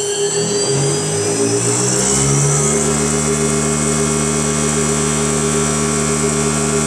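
Machine-tool spindle motor on a servo drive spinning up in the forward direction. Its whine rises over about the first two seconds, then holds steady at full speed. A constant hum runs beneath it.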